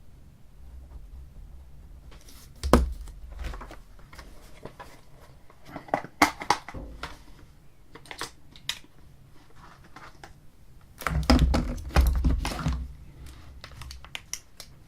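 Desk handling noises as a mechanical pencil and a measuring caliper are picked up and set in place: scattered clicks, light scrapes and rustling, with a busier run of clicks and knocks near the end.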